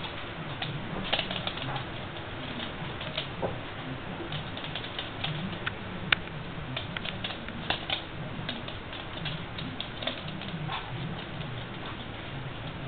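Irregular light clicking and tapping of dogs' claws on a hard floor, with a few sharper taps.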